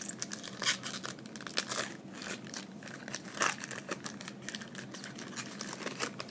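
Foil trading-card pack wrapper crinkling and cards being handled, in irregular crackles and rustles.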